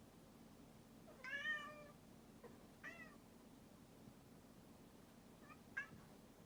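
Domestic cat meowing: one longer, slightly falling meow about a second in, a shorter meow about a second and a half later, and two brief chirps near the end. A call its owner finds unusual for this cat.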